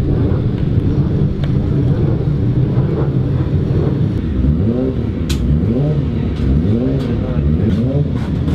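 Racing motorcycle engines running, with repeated quick throttle blips from about halfway in, the pitch rising and falling a little more than once a second. A few sharp clicks sound over the engines.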